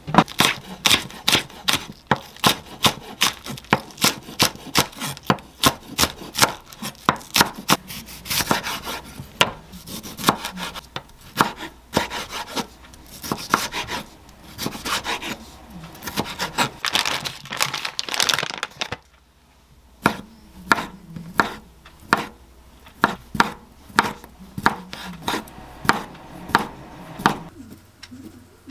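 Chef's knife chopping green onion, tomato and sausage on a wooden cutting board: a steady run of sharp blade-on-board strikes, about two or three a second. About two-thirds through there is a pause of a second, then the cuts come more widely spaced.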